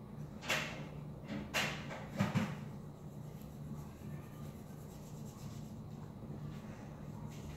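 Felt-tip marker rubbing across paper while colouring in, with three louder scratchy strokes in the first two and a half seconds and fainter strokes after. A low steady hum runs underneath.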